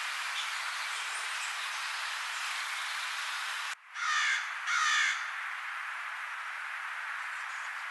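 Steady background hiss, then about four seconds in two loud, harsh bird calls of about half a second each, one right after the other.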